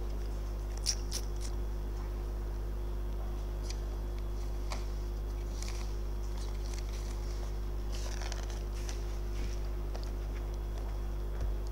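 Sheets of paper being handled and leafed through in short, faint rustles and clicks, over a steady low electrical hum.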